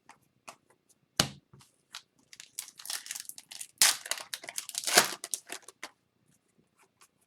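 Scattered sharp clicks and a loud knock about a second in, then several seconds of crinkling and tearing: a hockey card pack's wrapper being ripped open and crumpled.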